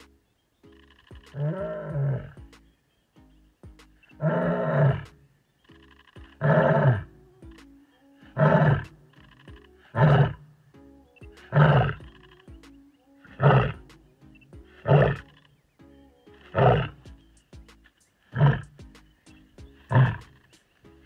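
A lioness roaring in a long bout of about eleven calls: the first three long and drawn out, the rest short grunting calls coming roughly every 1.7 seconds. She is calling for her lost cubs. Background music plays underneath.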